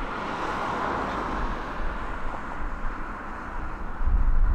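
Boeing 787-9 jet engines on the takeoff roll, a steady rushing noise. About four seconds in, a louder low rumble comes in suddenly.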